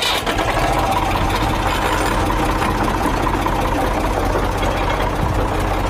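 Tractor engine running steadily, with an even low hum.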